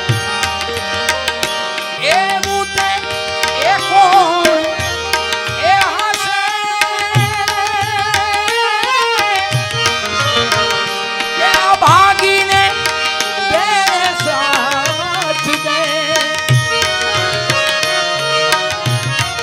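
Bhajan accompaniment: a harmonium holds steady notes under a melody that glides up and down, with tabla strokes keeping a steady beat.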